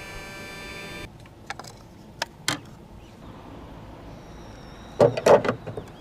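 Glass marbles clicking and clacking on a plastic somen nagashi spiral water slider: a few separate clicks, then a quick cluster of loud clacks about five seconds in, over a low wash of running water.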